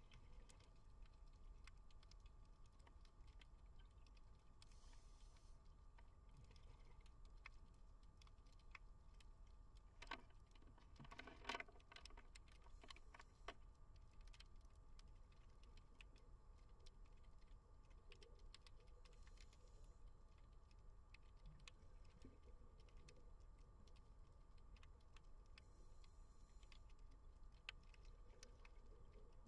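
Near silence of underwater ambience: faint scattered clicks and crackles over a low hum, with a brief cluster of louder clicks a little before halfway.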